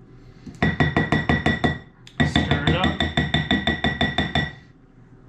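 Wooden spoon stirring a bowl of chocolate chips, peanut butter and butter, knocking against the bowl's side about seven times a second in two spells, with the bowl ringing.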